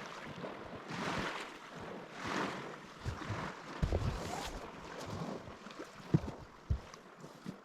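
Soft outdoor noise of wind and lapping water rising and falling in swells, with a few faint knocks about four and six seconds in.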